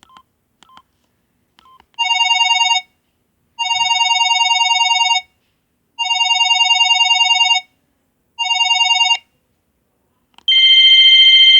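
ZTE WP650 phone's ringtone through its speaker: a fast-warbling two-note trill plays in four bursts, the middle two longer. It follows a few faint short key beeps, and about ten seconds in a different, higher ringtone starts.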